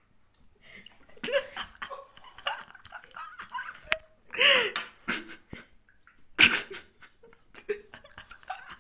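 Human laughter in several fits, strongest around the middle and again about two seconds later.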